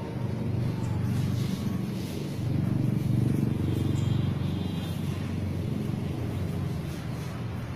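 A low, steady rumbling noise, a little louder between about two and a half and four seconds in.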